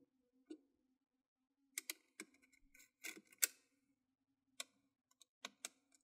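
Faint, scattered small clicks and taps of a precision screwdriver and fingers on a laptop's plastic and metal internals as screws are taken out, single and in pairs, about every half second to second.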